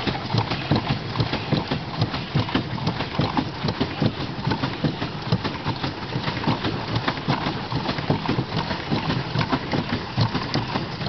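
Pedal boat's paddle mechanism turning while being pedalled, a fast, continuous clatter of knocks.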